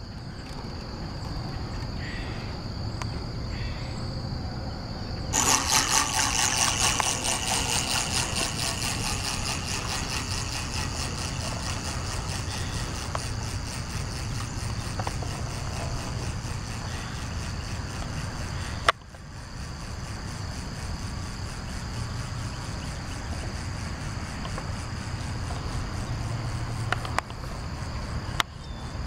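The clockwork spring motor of a tin wind-up toy race boat starts whirring about five seconds in, a fast, even buzz that slowly fades as the boat runs off across the water. Steady insect chirring runs underneath.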